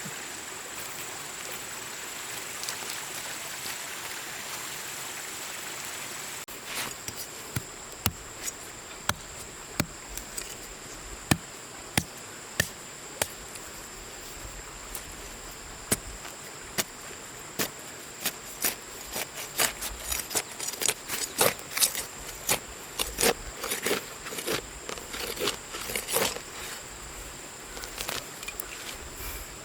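Steady high-pitched insect drone over outdoor background noise. From about six seconds in, sharp irregular knocks and taps come in, growing more frequent later on.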